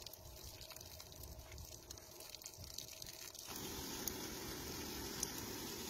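Water trickling faintly, then running louder and more steadily from about three and a half seconds in.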